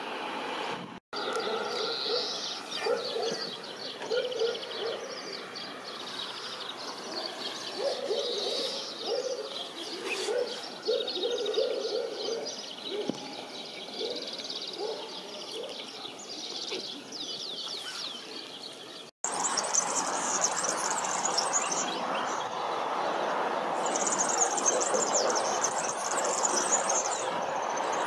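Several songbirds singing: high twittering trills mixed with repeated low wavering notes. After a brief break in the sound, very high rapid trilling comes twice over a steady rushing background.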